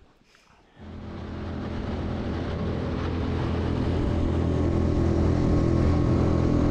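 Propane-fuelled Tohatsu outboard motor running steadily as the jon boat travels at speed. It comes in suddenly just under a second in and swells over the next few seconds.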